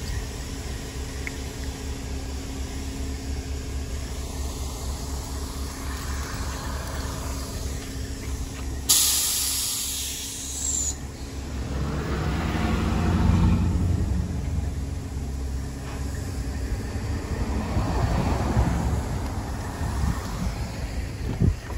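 Vehicle engines running at a steady low hum. About nine seconds in, there is a loud two-second hiss of air from the car-carrier truck's air brakes. Afterwards engine noise swells and fades twice.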